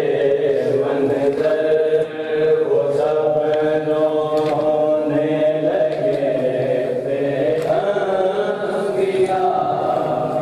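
A group of men chanting a nauha, a Shia mourning lament, together in long held tones.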